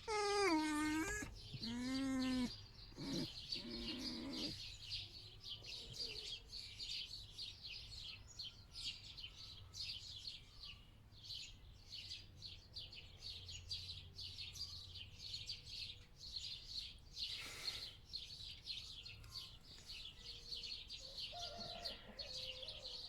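A pet fox whining in wavering high calls during the first couple of seconds, then small birds twittering steadily in many quick high chirps.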